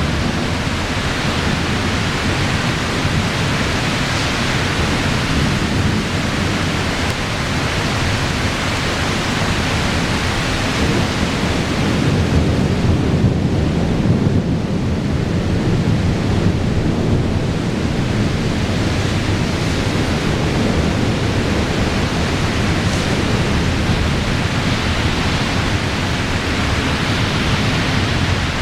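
Thunderstorm: a steady hiss of rain, with low thunder rumbling that swells louder around the middle.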